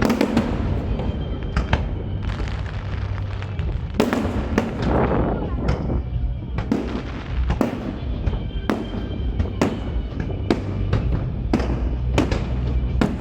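Aerial fireworks bursting overhead: sharp bangs about once a second, some trailing off in a crackling smear, with music playing underneath.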